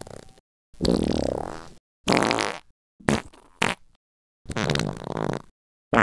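A run of about five separate farts, each a second or less long, some sputtering, cut apart by short gaps of dead silence.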